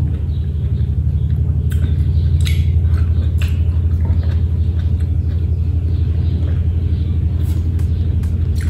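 A loud, steady low rumble, with a few faint crunches of raw vegetables being chewed in the first half.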